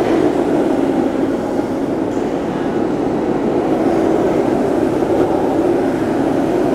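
Waste-oil burners of a brick batch kiln burning steadily while the kiln warms up. The noise is loud, continuous and even, with a heavy low-to-middle rumble and no rhythm.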